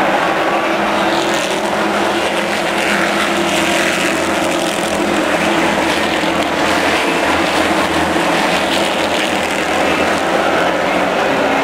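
A pack of late model stock cars' V8 engines running together at racing speed, a loud steady drone of many engines at once.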